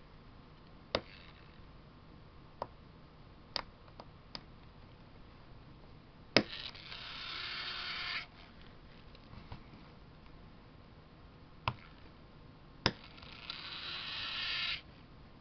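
Tortoise slow-motion switch machine throwing twice: each time a sharp click, then its small motor whirring for one to two seconds, growing louder and cutting off suddenly. Several lighter clicks come in between.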